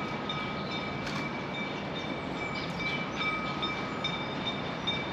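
A train running, with a high thin whine that comes and goes over a steady rumble.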